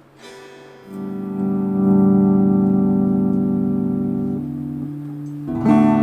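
Squier Bullet Telecaster electric guitar played clean through a Roland Cube amplifier: a chord is strummed about a second in and rings on for several seconds, fading as some strings drop out, then a fresh chord is strummed near the end.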